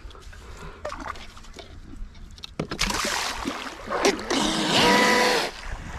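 40-inch Everingham scale RC race boat, driven by a TP 4050 1700kV brushless motor on a 4S battery, pulling away from the bank: about two and a half seconds in, a loud rush of water spray starts, and from about four seconds in the motor's steady whine is heard over it, dropping away near the end.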